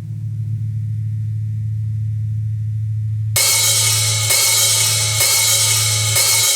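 Rock music: a steady low sustained note, then about halfway through a loud cymbal wash from a drum kit comes in over it.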